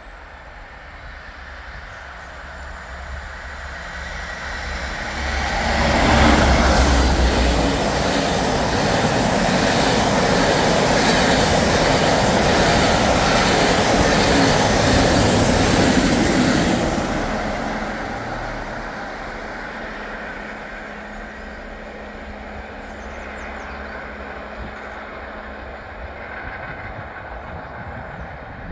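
Class 52 'Western' diesel-hydraulic locomotive hauling a rake of coaches past at speed: its deep engine drone builds to a loud peak about six seconds in, then the coach wheels clatter over the rails for about ten seconds before the sound dies away to a quieter steady rumble.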